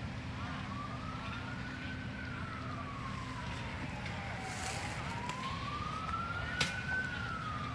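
Emergency vehicle siren wailing, its pitch rising and falling slowly in about five-second sweeps over a steady low rumble, with one sharp click late on.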